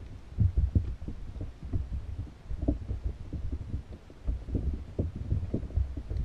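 Underwater sound through a GoPro's waterproof housing: an irregular run of muffled low thuds and rumble, several a second, from water moving against the submerged housing and trap.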